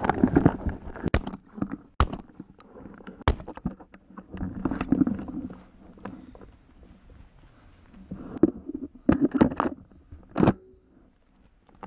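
Handling noise from a shotgun with a barrel-mounted camera as it is carried: irregular sharp knocks and clicks with stretches of rustling and rubbing.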